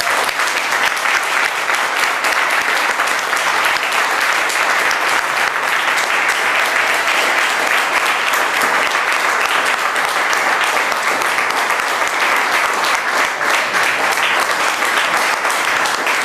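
Audience applauding steadily and loudly, a dense patter of many hands clapping.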